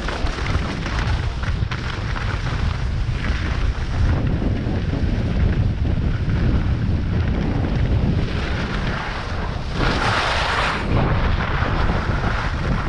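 Wind noise buffeting a GoPro's microphone as the wearer slides down a groomed snow slope, with the hiss of edges scraping over the snow; the loudest scrape comes about ten seconds in and lasts about a second.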